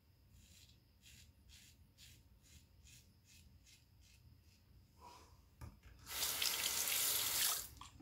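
Valet AutoStrop razor scraping through lathered stubble in short strokes, faint rasps about two or three a second. Near the end a tap is turned on and water runs for about a second and a half.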